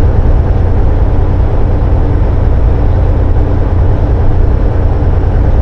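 Steady low rumble inside a semi-truck cab cruising at highway speed: the diesel engine's drone mixed with road noise, unchanging throughout.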